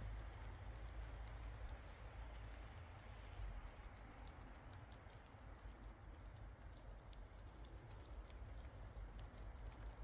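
Faint footsteps crunching in snow, a steady run of small ticks over a low rumble, with a few short high chirps.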